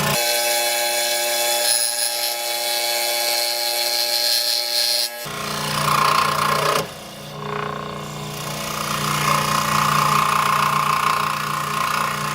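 Electric scroll saw running, its reciprocating blade cutting through wood: a steady motor hum under a rasping cutting noise, with a brief dip in loudness about seven seconds in.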